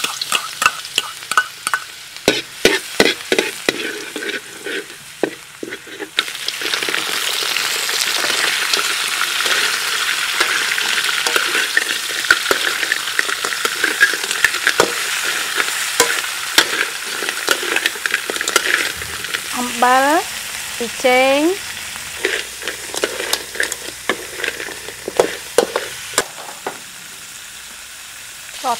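Chopped garlic sizzling in hot oil in a large metal wok, with a metal spatula clicking and scraping against the pan. About six seconds in, the sizzle grows much louder as crabs are stir-fried in the wok, then eases off. A few short rising tones sound about two-thirds of the way through.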